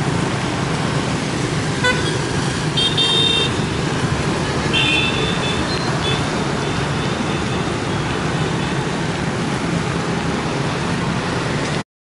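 Steady roadside traffic noise with two short vehicle horn toots, about three and five seconds in. The sound cuts off abruptly just before the end.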